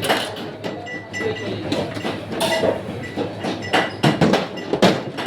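Irregular clattering: utensils and dishes knocking and clinking against one another over a steady low rumble.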